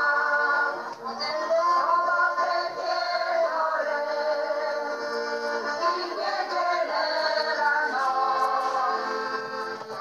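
A folk singing group, led by women's voices, sings a Polish folk song together to accordion accompaniment, in long held phrases. There is a short break for breath about a second in.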